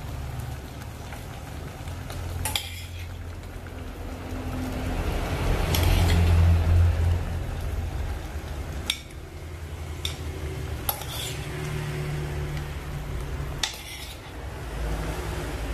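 A metal spoon scraping and clinking against a ceramic plate and an earthenware pot as food is pushed off the plate and stirred, with several sharp clinks. Food sizzles steadily in the pot over a gas burner.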